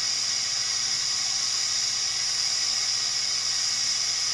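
Steady air hiss with a faint low hum from a powered thermal lamination machine, unchanging throughout.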